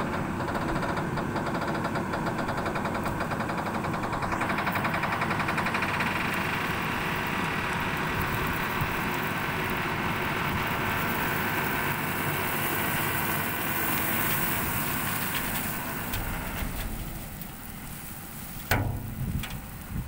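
Diesel tipper truck engine running steadily at low speed as the truck backs up slowly. The engine eases off near the end and a single sharp knock sounds as the tipper body starts to raise and dump its soil.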